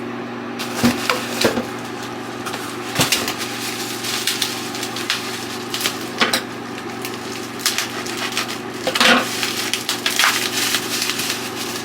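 Scattered clicks, knocks and crackly rustles of hands handling a shaving soap container and its packaging, over a steady low hum.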